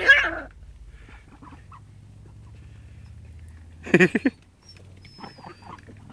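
Short animal calls from the ducks and dog: a loud call right at the start, then a quick run of several short calls about four seconds in and a few fainter ones after.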